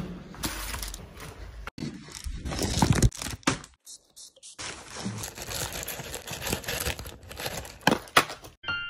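Crinkling and tearing of a plastic bubble mailer as a package is handled and opened by hand, in irregular bursts with a short pause about four seconds in.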